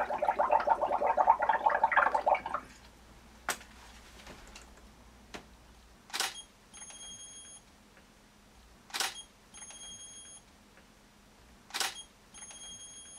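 Bubbling as air is blown through a straw into a dish of soap bubble solution, for about two and a half seconds. Then a single click, followed by three DSLR shutter releases about three seconds apart, each followed by the thin high whine of the speedlight flash recharging for about a second.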